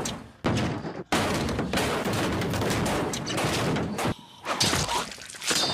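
Violent TV action sound effects: a string of sudden bangs and impacts, with a long noisy stretch of clatter in the middle.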